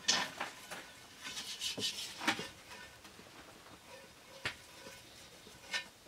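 Fingers rubbing olive oil around the inside wall of a cast iron Dutch oven: soft, intermittent rubbing and scraping against the iron, with a few sharp clicks.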